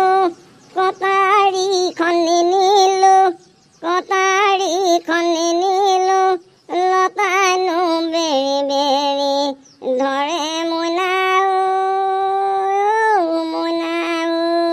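A high, child-like voice singing a tune without accompaniment, in short phrases with brief pauses between them, ending on a long held note.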